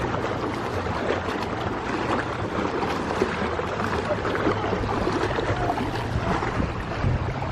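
Seawater sloshing and splashing close to the microphone, with wind rumbling on it.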